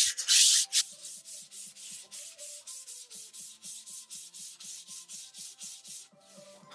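120-grit sandpaper rubbed by hand back and forth along the grain of a raw wooden board, loud for the first second, then softer, even strokes at about three a second. This is the first coarse pass that takes out splinters and rough spots.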